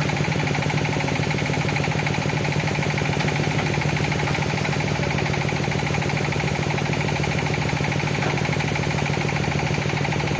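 Hitachi ZX200 excavator's diesel engine running steadily at an even speed, with a fast regular pulsing throb and no revving.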